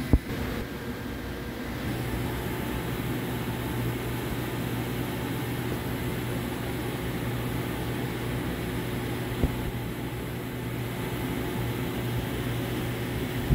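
Steady low machinery hum with a droning low tone that grows stronger about two seconds in. A sharp click comes right at the start and a single brief knock about nine seconds in.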